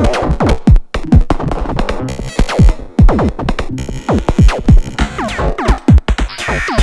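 Eurorack modular synthesizer patch playing electronic drum hits and pitched synth notes that each drop quickly in pitch, in an uneven, shifting rhythm.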